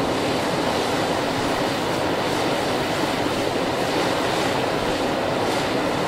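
Steady rushing of flowing river water, an even noise with no breaks.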